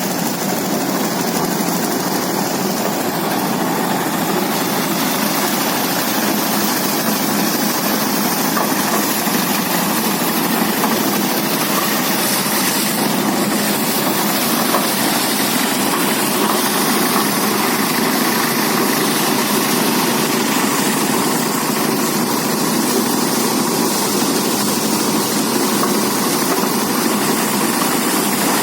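Engine-powered rice threshing machine running steadily.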